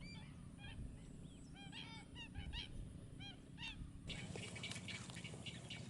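Wetland birds calling in a quick series of short, arched notes, several a second, for about four seconds, then giving way to a busier patter of thin high ticks. A steady low rumble sits underneath.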